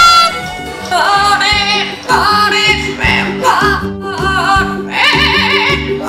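Amazon parrot singing in a loud, high, wavering voice, in several short phrases with brief breaks, over background music with guitar and steady low notes.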